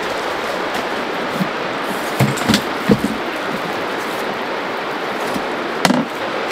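River water rushing steadily over stones, loud and unbroken. A few soft knocks of footsteps on pebbly ground come around two to three seconds in and once more near the end.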